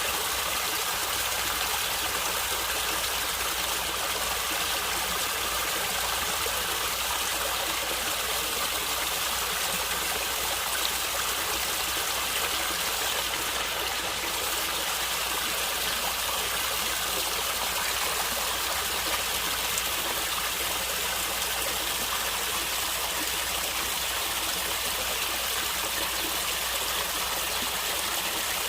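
Stream water running and gurgling steadily.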